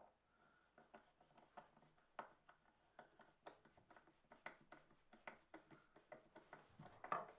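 Faint, irregular metallic ticks and clicks from a screwdriver turning the slotted brass nut that holds the wooden front knob on a Record No. 5 hand plane, a few clicks a second, with a slightly louder click about seven seconds in.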